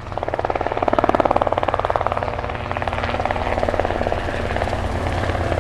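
Helicopter rotor chopping rapidly over a low engine drone. It swells up over the first second, then holds steady.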